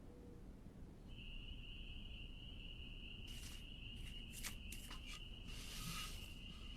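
A cricket trilling: one steady, high, unbroken tone that starts about a second in. In the middle come a few short, soft crackling clicks.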